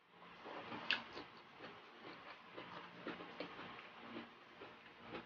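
Close-miked chewing and lip smacking: a run of small, irregular wet mouth clicks, with one sharper click about a second in.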